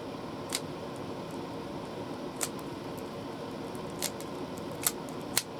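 Puzzle cube being twisted by hand: five sharp clicks at uneven intervals, with a few fainter ticks, over a steady background hum.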